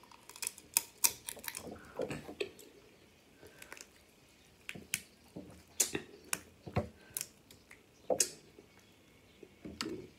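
Snow crab leg shells cracking and snapping as they are broken apart by hand: an irregular scatter of sharp cracks and clicks with short pauses between them.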